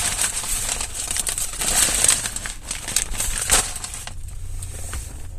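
Food wrapper or bag crinkling and rustling as it is handled, in quick crackly bursts that die down about four seconds in.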